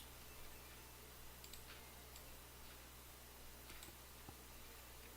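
Near silence with a low steady hum and a few faint mouse clicks.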